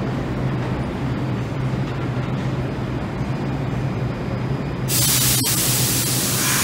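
Subway trains in a station: a steady low hum and rumble from the standing train and the train approaching in the tunnel. About five seconds in, a loud hiss of air starts suddenly and keeps going, with a single click just after.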